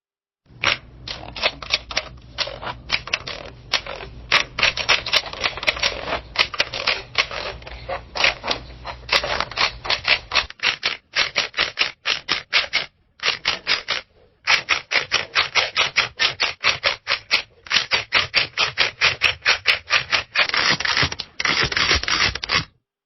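Camera shutters firing in rapid bursts of about four to five clicks a second, with short breaks a little before and just after halfway. A faint low hum runs under the first half.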